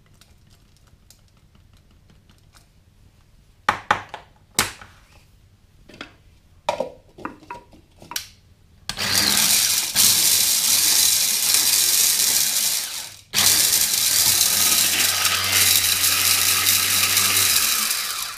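Electric mini chopper grinding whole spices for a dry cure. A series of knocks and taps comes first, then the motor runs in two long pulses, about four and five seconds, with a brief stop between.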